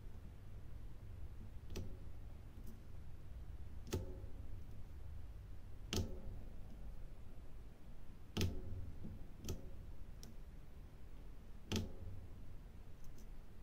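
Small irregular clicks and taps, about one every second or two, of a diamond-painting drill pen picking plastic resin drills from a plastic tray and pressing them onto the adhesive canvas, over a low steady hum.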